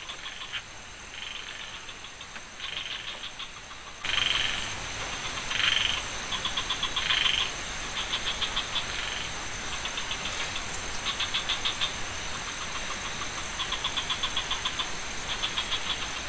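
Frogs calling in a chorus of rapid pulsed croaks, repeated every second or so, a few of them louder, over a steady high-pitched whine. The background hiss rises suddenly about four seconds in.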